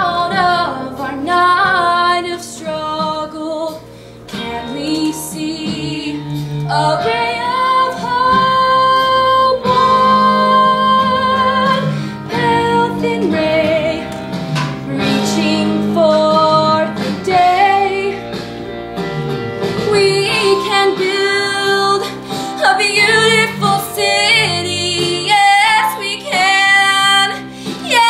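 A female voice singing a song with instrumental accompaniment, holding long notes.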